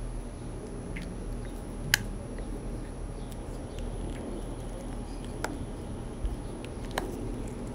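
A few sharp small clicks and taps of a watch case back being handled and lined up on the watch case, the loudest about two seconds in, over a steady low hum.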